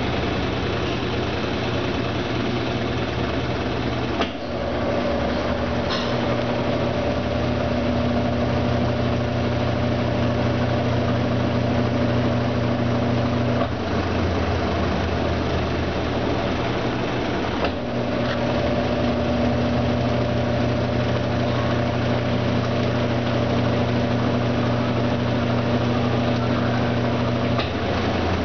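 Brastemp Ative 11 kg top-load washing machine running a draining and spin stage: a steady low hum with a pitched motor whine that switches on about four seconds in and runs for roughly ten seconds, drops out briefly, then comes on again for another ten seconds.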